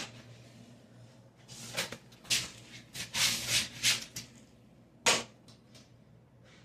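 Handling noises: a sharp click, then a cluster of short scraping and clattering sounds, and a single sharp knock near the end, over a faint steady hum.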